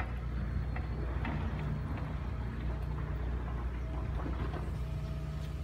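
Steady low rumble of a running engine, with a few faint clicks.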